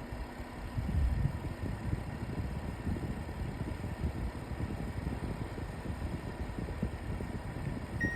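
LG AeroTower fan/air purifier running at a high fan speed with a low, fluttering vibration rumble: the abnormal vibration noise that shows up at fan speeds 5 to 7. A short beep sounds near the end.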